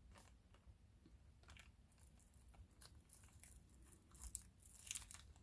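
Faint crinkling and small clicks from handling plastic bead packaging, a little louder near the end.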